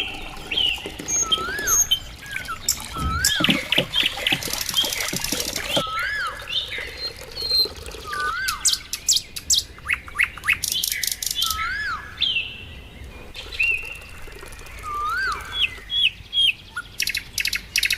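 Birds chirping and calling: a whistled note that rises and falls repeats about every two seconds, mixed with short high chirps and a few quick rattling trills.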